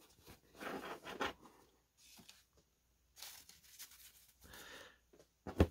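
A stack of paper baseball cards handled and squared up in the hands: soft rustling and sliding of card edges, with one sharp tap near the end.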